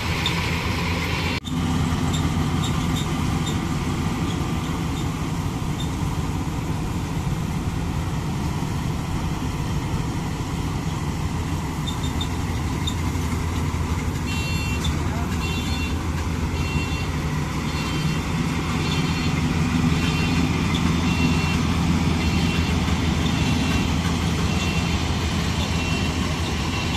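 Diesel engine of a GAM combine harvester running steadily. From about halfway, a repeating high-pitched tone pulses over it.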